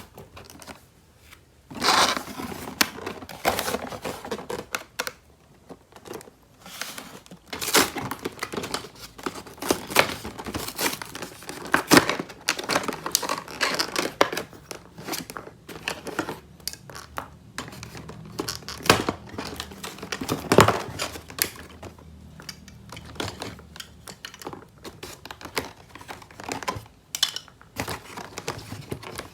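Toy packaging being crinkled and torn open by hand, in irregular crackling bursts with sharp clicks and taps.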